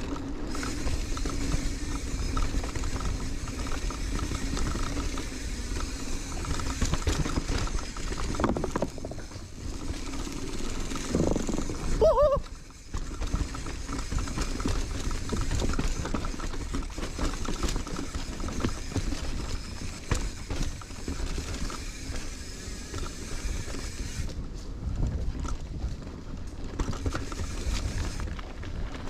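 Marin San Quentin hardtail mountain bike ridden down a dirt bike-park trail: steady tyre rumble, rattling and knocks from the bike over the terrain, and wind on the microphone. About twelve seconds in, a short loud squeal slides up and down in pitch.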